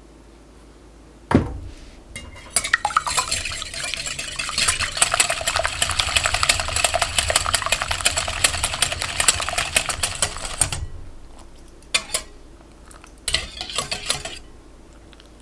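Wire balloon whisk beating egg whites in a glass bowl, its wires clicking rapidly against the glass as the whites are whipped lightly into a loose foam. A single knock comes about a second in, then steady whisking for about eight seconds, with two short bursts of whisking near the end.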